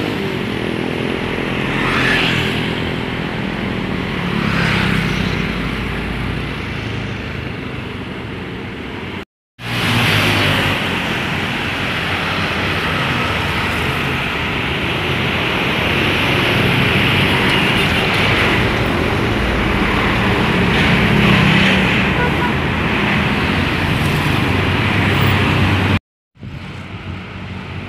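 Road traffic with large buses passing: steady engine and tyre noise, with no horn standing out. The noise cuts off abruptly twice, about nine and twenty-six seconds in.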